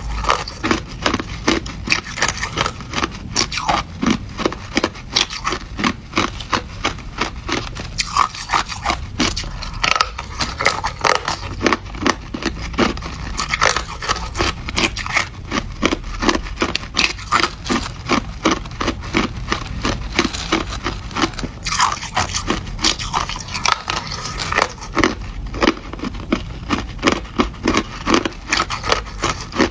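A mouthful of hard crushed ice being chewed, a steady run of crisp crunches a few times a second.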